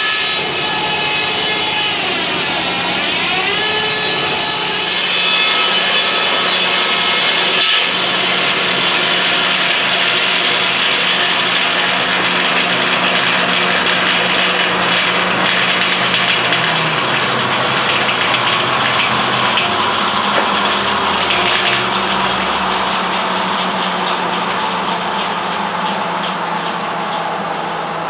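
Double-bladed circular sawmill running and cutting through a log: a steady loud whine of the spinning blades and machinery with a hissing rasp of the cut, growing louder about five seconds in and easing near the end.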